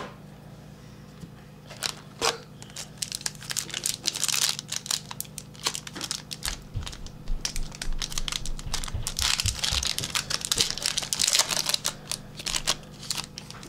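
A trading card pack wrapper being torn open and crumpled: a dense run of crinkling and crackling starting about two seconds in and lasting about ten seconds, with a few dull low bumps midway.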